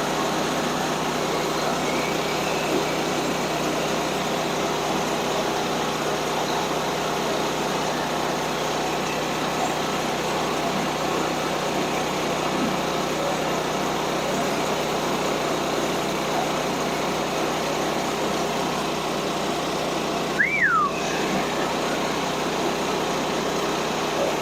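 Gas engine of a Woodland Mills portable band sawmill running steadily under load as the blade cuts through a log. A brief high chirp, rising then falling in pitch, comes about 20 seconds in.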